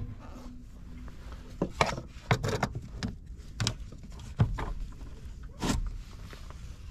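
Handling noise: about half a dozen short taps, clicks and rustles as a hand touches the car battery and parts in the engine bay, with the camera being moved about.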